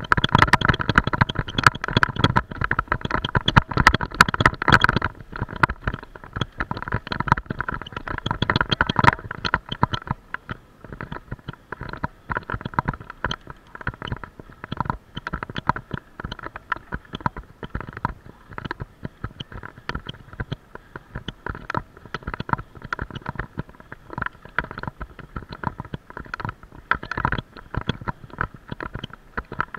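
Mountain bike rattling and jolting as it rolls downhill, heard through the bike-mounted action camera: a dense run of knocks and clatter with a low rumble, heavy over a rough grass track, then lighter and thinner on smooth pavement about ten seconds in.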